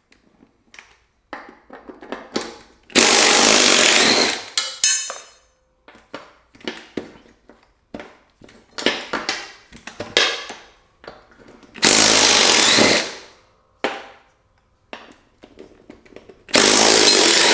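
An impact gun running in three short bursts, undoing the 10 mm bolts that hold a mower-deck spindle, with clinks and knocks of handling between bursts.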